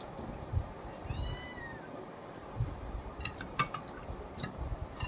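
Domestic cat meowing once, a short high call about a second in that drops in pitch at its end. A few light clinks and clicks follow.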